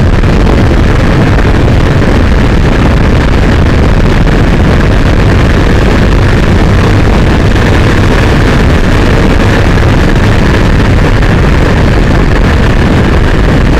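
Motorcycle riding at road speed: steady, loud wind rush over the handlebar camera's microphone mixed with engine and road noise, unbroken throughout.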